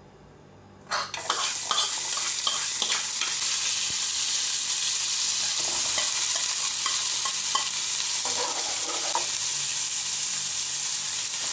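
Chopped garlic and sliced onions frying in hot cooking oil in a nonstick pan. The sizzle starts suddenly about a second in, when the garlic hits the oil, and then holds steady, with the clicks and scrapes of a spoon stirring through it.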